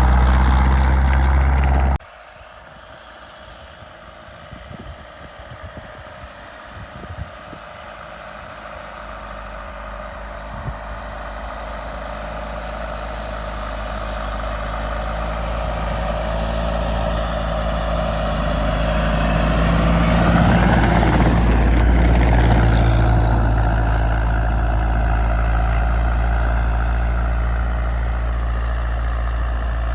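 Tucker snocat's Isuzu four-cylinder turbo diesel running. Its sound drops abruptly about two seconds in, then grows steadily louder, loudest a little past the middle, and settles into a steady run.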